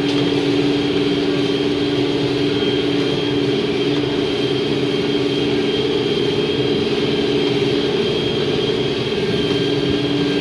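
John Deere 5100E tractor's diesel engine running at a steady speed, a constant drone with a thin, steady high whine above it.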